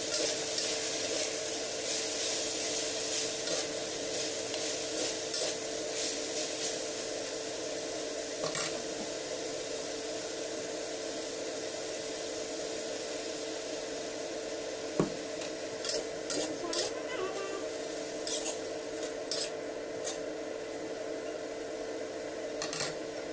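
Sliced green chillies and meat sizzling in a steel wok while a metal spatula scrapes and taps the pan as they are stir-fried, over a steady hum. There are bursts of stirring strokes near the start and again in the second half, and one sharp knock about fifteen seconds in.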